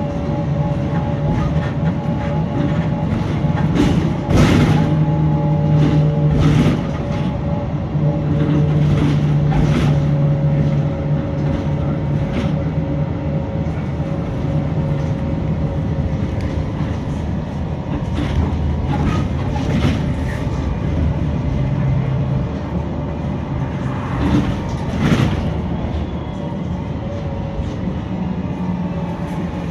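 VDL SB200 single-deck bus on the move: a steady drone from its diesel engine with a fainter steady groan over it, and knocks and rattles from the body, a few of them louder, about 4, 6 and 25 seconds in.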